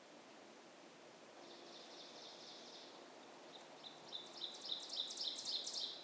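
Two songbird songs: a short, rapid, high trill, then a longer song of quick repeated high notes that grows louder toward its end.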